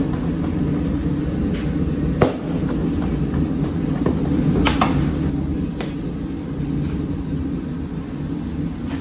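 Steady low rumble with a few sharp knocks and clinks from two large knives chopping minced meat on a cutting board, about two seconds in and again a few times between four and six seconds.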